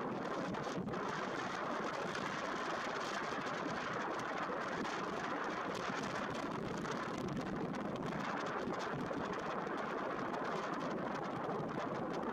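Strong inflow wind blowing steadily against the microphone, a constant rushing noise.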